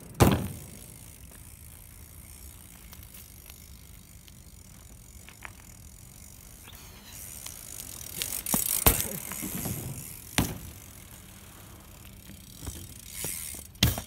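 BMX bike landing hard on concrete after a jump off a ramp, one sharp impact just after the start. Later come scattered rattles and a couple of sharp knocks from the bike, and another sharp knock near the end.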